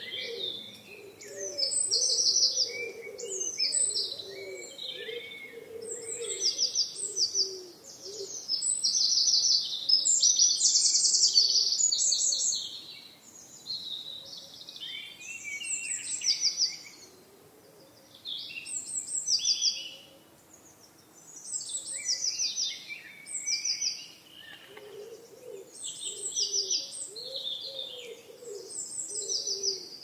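Several songbirds singing in a woodland chorus, with quick trills and chirped phrases that overlap and come in waves. A lower, wavering call sounds under them at the start and again near the end.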